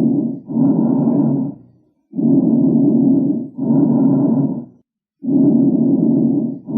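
Recorded lung sounds: a person's breathing, each breath an inhalation and an exhalation of similar length and loudness with a brief break between them, one breath about every three seconds.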